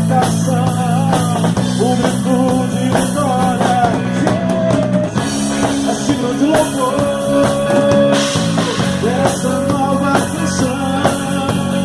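Live band playing a rock-style worship song: drum kit, electric bass and guitar, with a wavering melody line over a steady bass.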